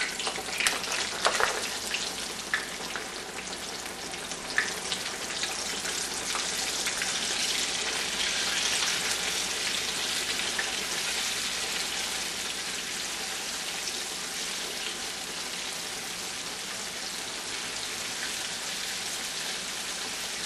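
Floured raw chicken breast pieces frying in hot oil in a cast-iron skillet: a dense, steady sizzle with a few sharp pops and crackles in the first few seconds, swelling a little in the middle. The vigorous bubbling is moisture cooking out of chicken that has just gone into the oil.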